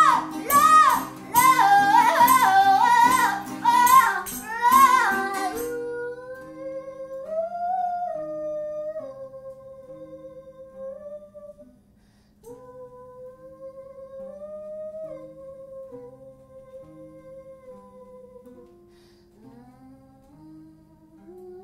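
A live song with singing over guitar; about six seconds in the singing gives way to long, soft held notes over quiet plucked notes, the music growing fainter toward the end.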